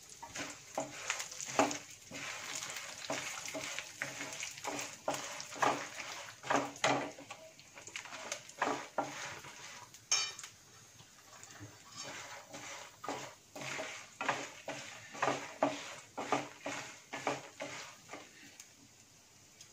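Wooden spatula stirring and scraping peanuts, dals and dried red chillies in hot oil in a non-stick kadai, in quick irregular strokes over a light sizzle of frying. The strokes thin out near the end.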